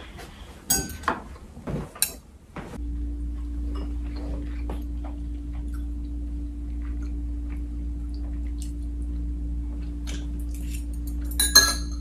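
Chopsticks and ceramic bowls and plates clinking during a meal, with a louder cluster of clinks near the end. From about three seconds in, a steady low hum sits underneath.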